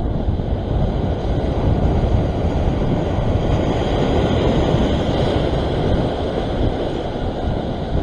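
Sea surf washing against the rock ledge, mixed with wind buffeting the microphone: a steady rushing noise with no distinct breaks.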